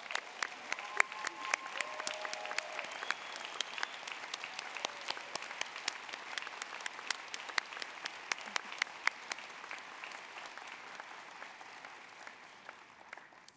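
Large audience applauding, starting at once, holding steady, then tapering off near the end.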